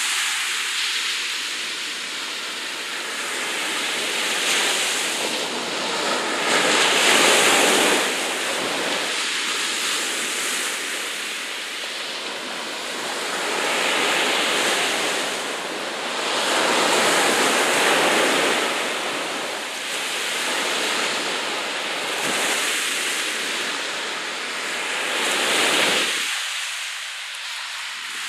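Sea waves washing and breaking, a steady rush that swells and eases every few seconds, loudest about seven seconds in and again near the end.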